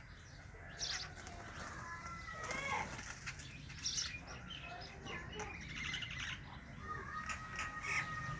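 Sparrows chirping in quick, overlapping notes, with wings flapping among them. Near the end, a couple of longer, steady whistled notes.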